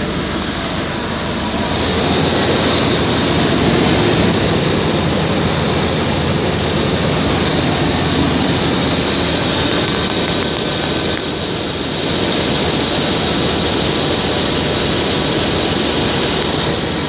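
1993 Chevrolet Suburban's gasoline V8 engine running steadily with the transmission in drive, getting a little louder about two seconds in and easing off briefly later.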